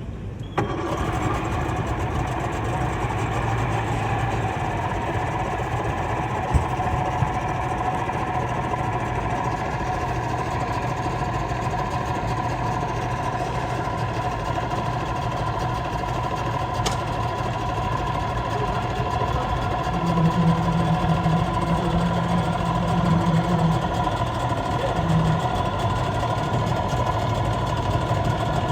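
Old 60 hp Mercury oil-injected two-stroke outboard running steadily at low speed, starting abruptly about half a second in and a little louder for a few seconds near the end.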